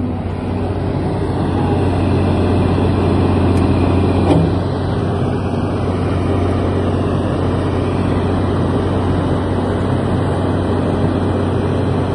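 Diesel engine of an Åkerman 45-tonne tracked excavator running steadily, swelling a little over the first two seconds, with a single knock about four seconds in.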